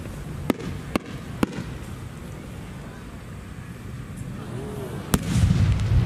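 A 10-gou firework shell with rising effects: three sharp pops in the first second and a half from the small bursts on its climb. About five seconds in comes the loud bang of the main four-core chrysanthemum shell bursting, followed by a deep boom that rolls on.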